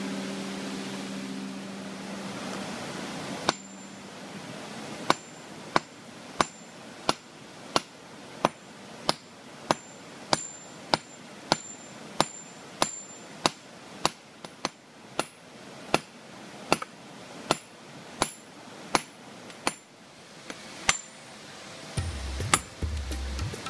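A hammer striking a hard stone boulder over and over at a steady pace of about one and a half blows a second, each a sharp crack, some with a short metallic ring. The blows start a few seconds in and stop shortly before the end.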